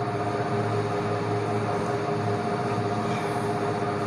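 A room cooling appliance, such as a fan or air-conditioning unit, running: a steady whooshing hum with a few steady tones in it.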